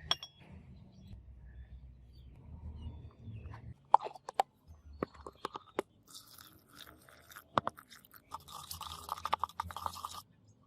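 Hand work on a metal workpiece: scattered sharp taps and clicks, then two runs of rapid rough scraping strokes, the second lasting about two seconds near the end.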